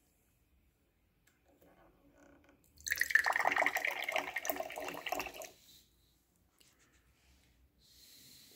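Liquid pouring from a drink dispenser's tap into a shot glass, starting about three seconds in and running for about two and a half seconds before stopping.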